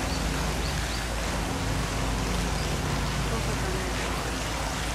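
Steady rushing background noise with a low hum, under a faint murmur of people's voices.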